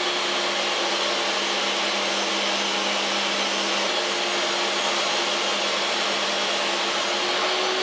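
Table saw with a 60-tooth circular blade running steadily at full speed while ripping a strip of veneered MDF, a steady motor hum and blade whine with the cut adding little on top.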